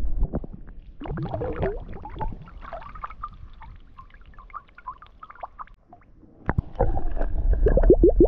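Water splashing and dribbling as a round glass flask is poured out over the water, then, about seven seconds in, fast underwater glugging, about eight bloops a second, as the submerged flask fills and air bubbles out of its neck.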